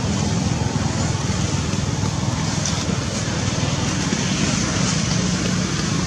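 Steady rushing background noise with a low rumble, unbroken and even throughout, with no calls or distinct events standing out.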